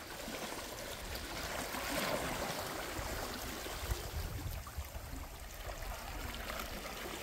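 Calm seawater gently lapping and trickling around rocks in shallow water, a steady soft wash with a slight swell about two seconds in.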